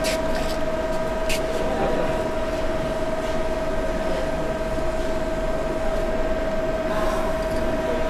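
Steady machine hum with a constant high-pitched whine from a powered-on CNC lathe, with a faint click about a second in.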